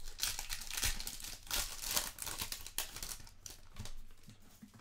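Foil wrapper of a Select Soccer trading-card hobby pack being torn open and crinkled by hand: a dense run of crackles and rips that dies down about three and a half seconds in.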